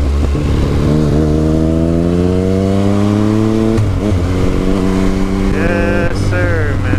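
Yamaha MT-09's inline three-cylinder engine accelerating, its pitch rising steadily for about three seconds, then dropping suddenly and running steady at a lower pitch.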